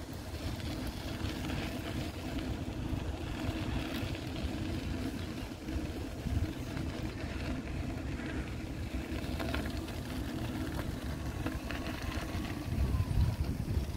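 City street ambience: a steady low engine rumble with wind buffeting the microphone, strongest near the end.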